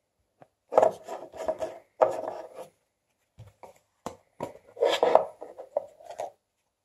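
Plastic KeepCup lid and cup being handled and the lid twisted off the cup: two bunches of plastic rubbing, scraping and clicking, the second about four seconds in as the lid comes off.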